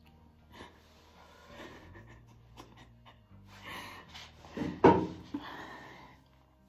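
A woman breathing hard with emotion, half laughing and half crying, with a louder breathy outburst about five seconds in; soft background music underneath.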